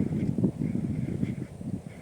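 Irregular wind rumble buffeting the microphone, easing off slightly after about a second and a half, with faint high ticks repeating a few times a second.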